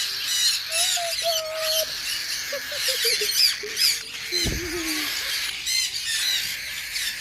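A young pet bird giving short baby calls close by over a constant chatter of many store birds chirping and squawking, with one dull handling bump about halfway through.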